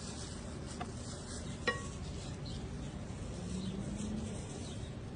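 A utensil clinking once against a dish, with a short ring, after a fainter tap, over steady low background noise.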